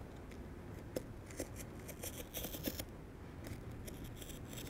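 Scissors snipping through inflatable boat tube fabric, a series of faint, short cuts lengthening a tear in the material.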